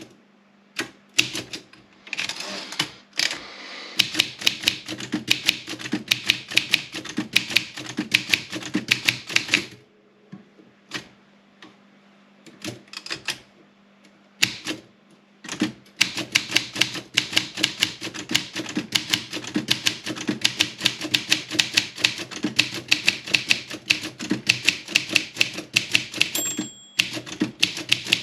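Olympia SM 7 manual typewriter typed on quickly, with rapid key and typebar strikes. The typing pauses for a few seconds midway, with only scattered strikes, then resumes, and the margin bell rings once near the end.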